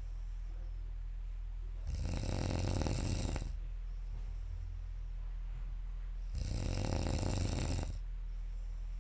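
A person snoring loudly in deep sleep: two long snores, each about a second and a half, coming about four and a half seconds apart, with a steady low hum in the quiet between breaths.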